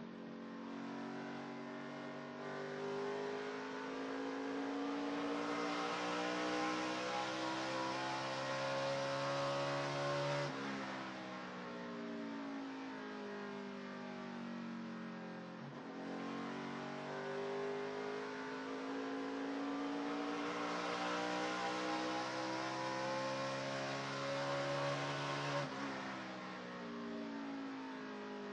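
NASCAR Camping World Truck Series race truck's V8 engine heard from onboard, rising in pitch under full throttle down a straight. It drops sharply as the driver lifts for the corner about ten seconds in, climbs again from about sixteen seconds, and lifts again near the end.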